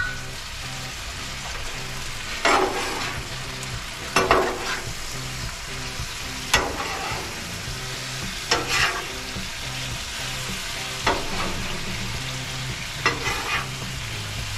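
Beef stir-fry and sauce sizzling on a Blackstone flat-top griddle, stirred with a scraping stroke about every two seconds.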